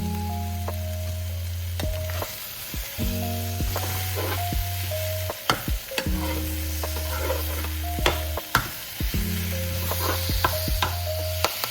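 Food sizzling as it fries in a pan, with sharp clicks and scrapes of a utensil stirring it. Under it plays a soft music track with stepped bass notes and a simple melody.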